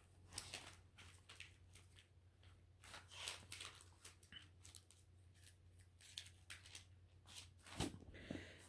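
Faint rustling and crinkling of thin Bible pages being leafed through: a string of soft, irregular scrapes and flicks over a low steady hum.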